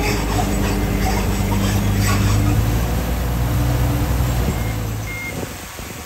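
Diesel engine of a D60 bulldozer running steadily under load as it pushes earth and stone. Its drone drops away after about five seconds, and a single short high beep sounds around then.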